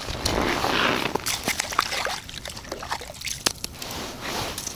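Water and slush sloshing and trickling in a hole in the ice as a tip-up is handled, with scattered small clicks and rustles.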